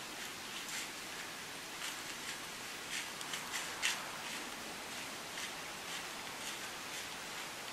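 Dry fallen leaves crunching and rustling in short, irregular steps as a whitetail doe walks through the leaf litter, over a steady background hiss.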